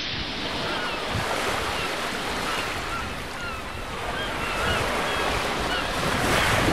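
Waves washing on a shore, with wind blowing into a steady surf noise that swells a little near the end. Faint short high chirps come about twice a second.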